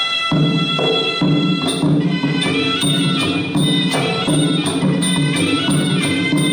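Traditional Kun Khmer fight music: a shrill reed pipe holds a melody over regular drum beats, with small hand cymbals joining about two seconds in.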